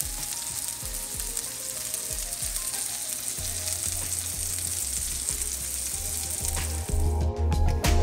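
Huckleberry pancakes sizzling in a hot frying pan, a steady hiss, with background music under it. About seven seconds in the sizzle cuts off and the music takes over.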